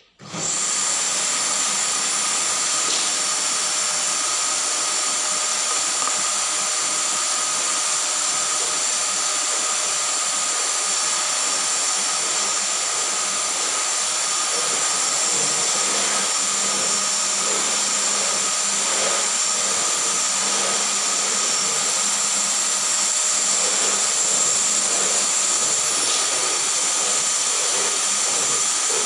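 Canister vacuum cleaner switched on right at the start, then running steadily: a loud rush of air with a high motor whine.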